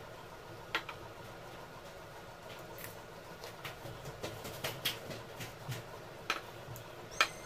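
Eating sounds over a steady faint hum: scattered small clicks and taps of hands working rice on plates and mouths chewing, most of them in a run in the second half, with a sharper ringing clink near the end as glassware meets the glass tabletop.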